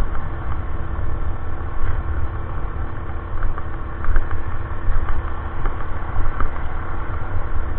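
Small gas generator engine on a hybrid e-bike running steadily, a constant pitched hum over a steady low rumble.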